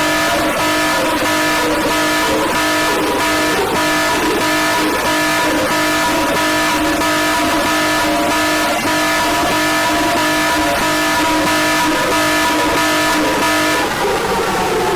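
Emergency alert alarm: a steady, distorted tone of several held pitches at once over hissing static with irregular crackles. It breaks off about 14 seconds in.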